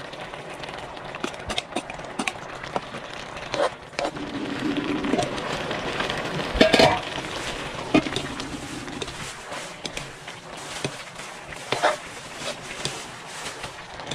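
Metal spatula scraping and clanking against a wok as fish and tomatoes are stir-fried, over the hiss of the food sizzling. The clatter is irregular, with the loudest knocks about seven, eight and twelve seconds in.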